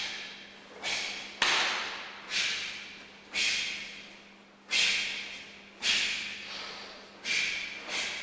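Karate techniques in a kata: the cotton gi snaps sharply with each strike and kick, and feet thud on the floor, about once a second, each snap fading away in the hall.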